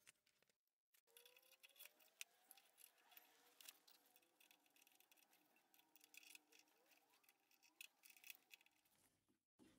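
Near silence with faint scattered metal clicks and taps: change gears being fitted on the gear train of an Optimum OPTIturn TU 2506V lathe and a spanner tightening their nuts.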